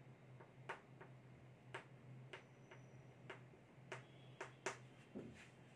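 Chalk on a blackboard while words are being written: about ten faint, sharp taps and clicks at irregular spacing, over a steady low electrical hum.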